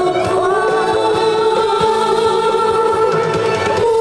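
A woman singing a Korean trot song into a handheld microphone over instrumental accompaniment, amplified through a PA, with long held notes.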